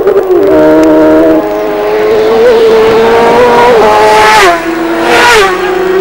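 Racing motorcycles passing close at speed one after another. The engine note jumps up and down in steps as the riders change gear, with a brief rush of noise as each bike goes by.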